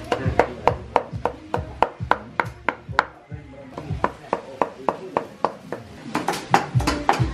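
Cleaver mincing wood ear mushrooms on a wooden chopping block: rapid, even chops at about three strikes a second, with a short pause a little after three seconds in.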